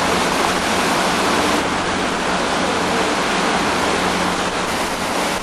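Steady rushing noise of wind and water heard from the deck of a moving ferry, over a steady low hum.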